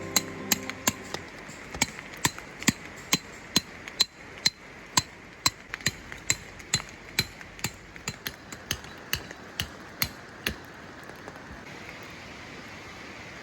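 Hammer blows at a steady pace of about two a second, stopping about ten seconds in, over the steady rush of the stream and rain.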